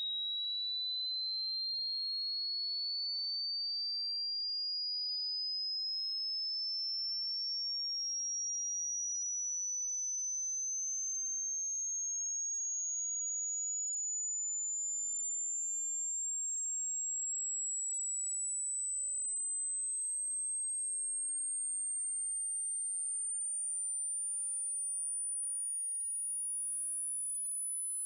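Hearing-test sweep tone: one pure sine tone at an even level, rising slowly and steadily in pitch from a high whistle to a very high, thin whine. It is the kind of sweep used to check how high a listener can still hear, which falls with age.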